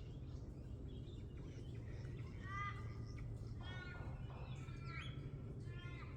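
A bird calls four times in short harsh notes, each note a stack of curved tones. A steady low background rumble runs underneath.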